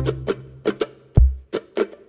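Background music: plucked-string notes over a bass, thinning to a few short percussive hits about a second in.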